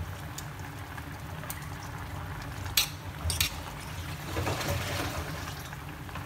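Shrimp and vegetable soup bubbling at a rolling boil in a stainless steel pot. Metal chopsticks knock sharply against the pot twice, about three seconds in, then stir the soup.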